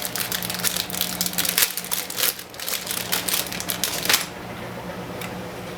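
Plastic packaging crinkling and rustling while a small drone battery is handled, stopping suddenly about four seconds in.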